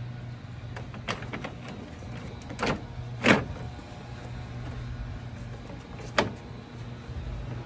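Plastic front grille of a Mercedes Sprinter being fitted and snapped into its bottom clips: a few sharp plastic clicks and knocks, the loudest about three seconds in and another about six seconds in, over a steady low hum.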